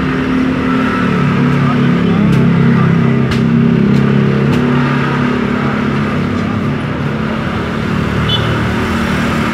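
A steady engine hum with a few light sharp clicks over it.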